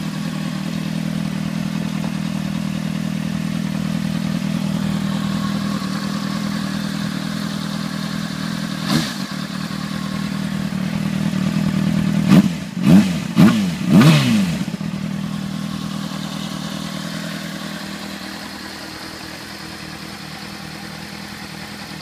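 A 2003 Honda CBR600RR's inline-four engine idling steadily through its under-seat exhaust. It is blipped once about nine seconds in, then revved four times in quick succession around the middle, each rev rising and falling back to idle. It then settles back to idle, a little quieter toward the end.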